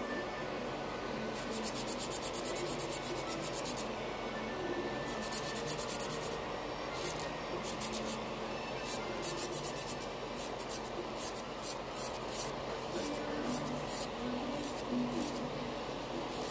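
Nail file rasping across fingernails in quick back-and-forth strokes. The strokes come in short runs with brief breaks, more spaced out in the second half.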